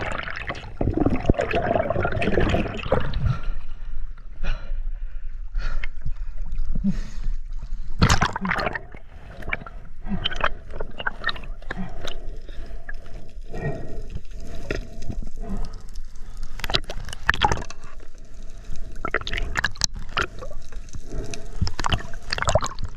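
Water gurgling and sloshing around an underwater camera, with many sharp clicks and knocks and a faint steady hum, while a speared dog snapper is fought and handled on the spear shaft.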